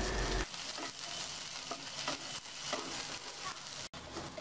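Sliced onion, garlic and green chillies sizzling in extra virgin olive oil in a nonstick frying pan, stirred with a wooden spatula that scrapes across the pan now and then.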